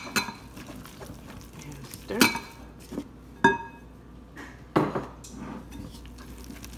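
Wire whisk stirring thick pancake batter in a glass mixing bowl, its metal wires striking the glass in about five sharp clinks at irregular intervals, each ringing briefly.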